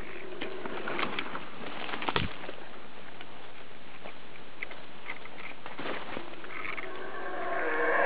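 Forest background hiss with scattered clicks and a sharp thump about two seconds in, between howler monkey calls; near the end the howler monkey's deep roaring calls build up again and grow loud.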